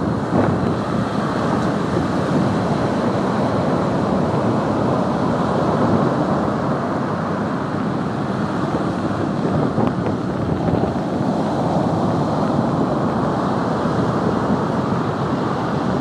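Heavy, storm-driven surf breaking and washing up a sand beach as a typhoon approaches: a steady, dense rush of waves that swells a little now and then, with wind buffeting the microphone.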